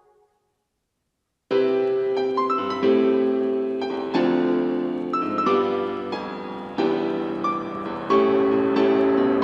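Background piano music: after a short silence, a piano piece starts abruptly about a second and a half in, with sustained chords and notes struck every half second or so.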